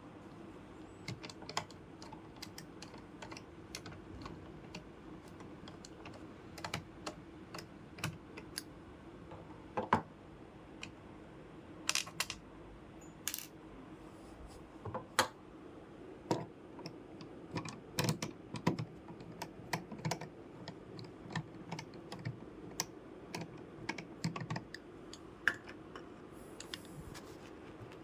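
Irregular small clicks and taps of hands working on a computer's plastic and metal parts, a few louder knocks among them, over a faint steady hum.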